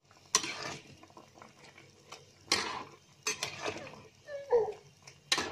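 A spatula knocking and scraping against a wok while stirring a thick fish-head curry (gulai), with four sharp clinks and quieter scraping between them. A short pitched sound is heard about four and a half seconds in.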